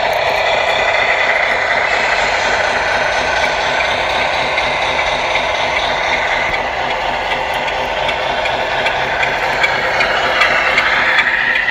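Steady diesel truck engine idling, played by the sound units of several 1/14-scale radio-controlled trucks.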